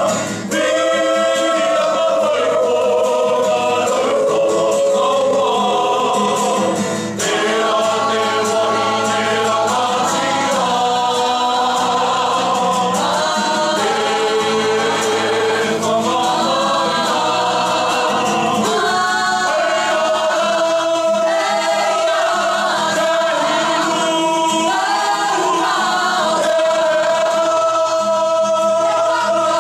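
A Māori kapa haka group of teenage boys and girls singing together as a choir, holding long sung notes that move from chord to chord, with a brief break between phrases about seven seconds in.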